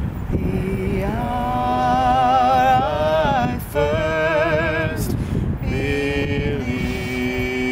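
A man and a woman singing together unaccompanied, in long held notes with vibrato. Wind rumbles on the microphone underneath.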